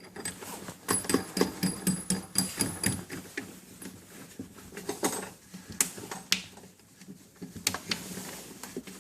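Quick run of metal clicks and light scraping as the mounting nut on a kegerator beer shank is tightened down with a wrench, with a faint ring, followed by a few scattered clicks.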